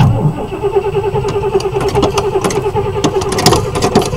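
Starter motor cranking the 1978 GMC motorhome's Oldsmobile 403 V8 with a steady, pulsing whir, then cutting off near the end as the engine catches.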